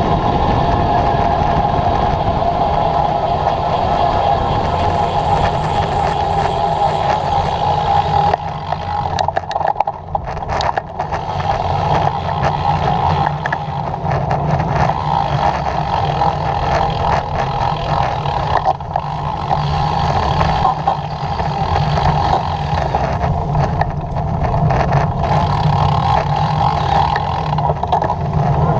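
Steady rush of wind over the microphone of a camera riding down a road at speed, with tyre and road noise underneath.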